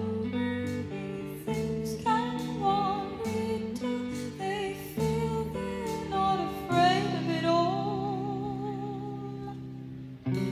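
Live band music: a woman sings a wavering, vibrato-laden line over held plucked chords that change every second or two, each change struck fresh.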